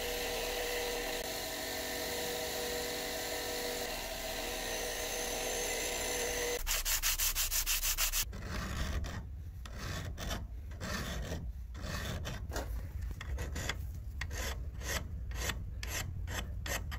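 A spinning bench-grinder buffing wheel polishes a metal blade held against it, giving a steady whir with a few held tones. Six or seven seconds in, this gives way to rapid back-and-forth rubbing of a flat metal piece on sandpaper. From about eight seconds on come hand-file strokes over rough cast metal, about two a second.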